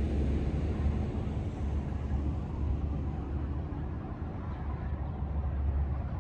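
Steady low rumble of highway traffic, rising and falling a little.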